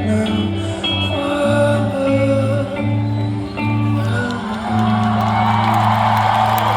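Live rock band playing the end of a song, with a singer. About four and a half seconds in, the crowd starts cheering while the band holds a final note.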